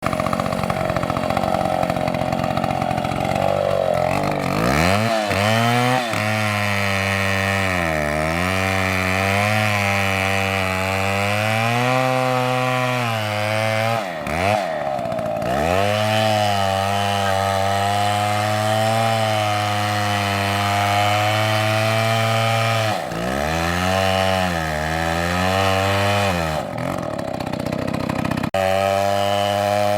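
Chainsaw cutting wood at high revs, its engine pitch sagging under load and picking back up several times.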